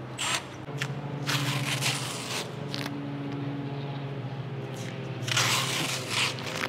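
Masking tape being peeled off a car's painted A-pillar: a short tear at the start, a longer one about a second in, and another near the end, over a steady low hum.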